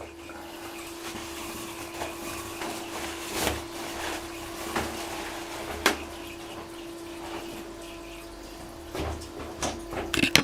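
Balterley Beo Regent toilet flushing toilet paper away: rushing water in the bowl and cistern, with a steady tone throughout and several sharp knocks, the loudest cluster near the end.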